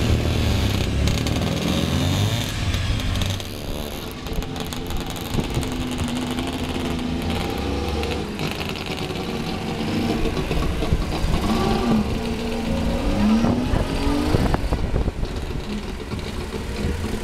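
Small engine of a Berkeley microcar running, its note rising and falling as it revs; the low rumble is heaviest in the first few seconds.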